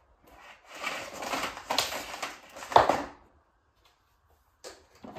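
Canister vacuum cleaner's power cord rewinding into the body: a rattling whirr for about two and a half seconds, ending in a sharp knock as the plug reaches the housing. Two soft knocks follow near the end.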